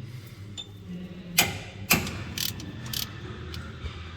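Metal hand tools working on truck fasteners: two sharp metallic clacks about a second and a half and two seconds in, then a few shorter clicks, like a ratchet wrench being worked.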